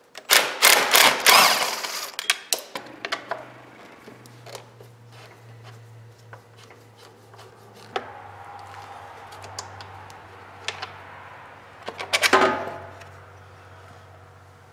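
Cordless impact driver rattling in short bursts as it backs out screws on a lawn tractor engine's plastic cover, followed by scattered clicks and knocks of tools and plastic, and another loud clattering burst about twelve seconds in. A steady low hum runs underneath from about three seconds in.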